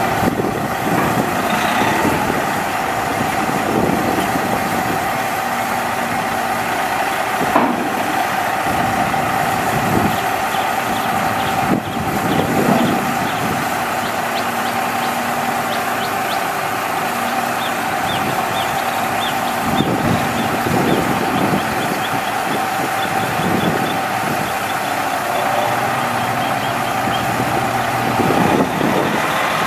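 International DT466 diesel engine of a 2009 Sterling L9500 dump truck running steadily, with a steady whine over the engine note.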